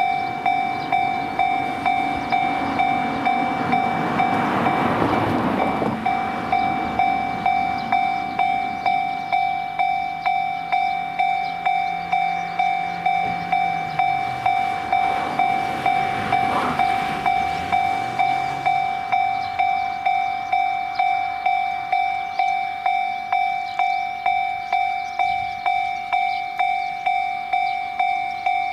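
Japanese level-crossing warning bell ringing the 'kan-kan' alarm, an even pulse of about three strikes every two seconds. A train runs past about three to six seconds in, and there is more train noise around fifteen to eighteen seconds.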